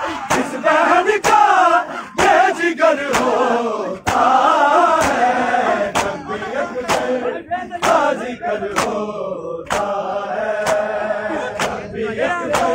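A crowd of men chanting a noha (Shia mourning lament) in unison, with sharp slaps of matam, hands striking bare chests, keeping a steady beat about twice a second.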